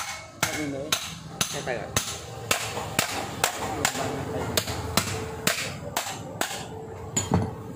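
Sharp, evenly spaced knocks, about two a second, like steady hammer strikes.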